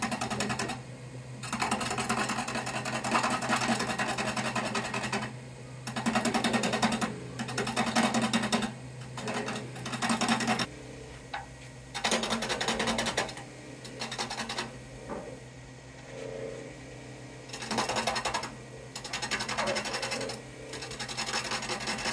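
Turning gouge cutting a spinning black walnut blank on a Laguna Revo 15|24 wood lathe: a series of rough scraping cuts, each lasting one to a few seconds with short pauses between, over the lathe motor's steady hum.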